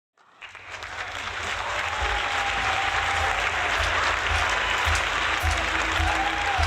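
Audience applauding in a small venue, fading in over the first second, with a few faint held tones under it.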